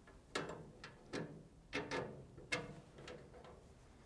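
A metal cam lock being fitted into a steel cabinet door: about six light, unevenly spaced metallic clicks and knocks of the lock against the sheet-metal door.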